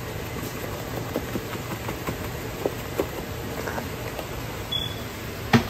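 Beef sizzling in a hot skillet with scattered small pops, over a steady low hum. A single sharp knock near the end.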